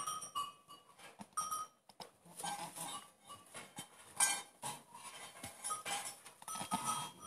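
Nanny goat licking and nuzzling her wet newborn kids in straw: irregular rustling and licking noises, with short high goat calls just after the start and again near the end.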